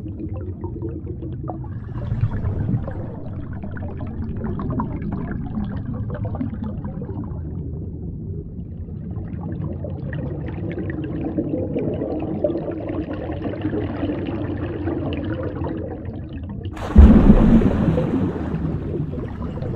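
Underwater ambience sound effect: a low rumble with bubbling and gurgling water. About seventeen seconds in, a sudden loud boom hits and slowly fades.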